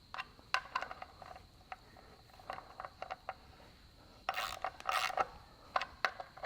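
Snap-on pivot-head hand ratchet snugging up the seal housing bolts: scattered metallic clicks and short rasps of the pawl as the handle is swung back, with two longer rasps about four and five seconds in.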